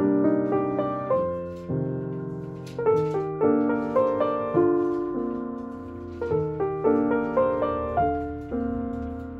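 Background music: a piano piece of notes and chords struck one after another, each left to fade.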